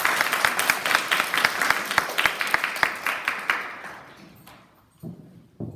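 Audience of young children and adults applauding, dense clapping that fades out after about four seconds, leaving a few scattered knocks near the end.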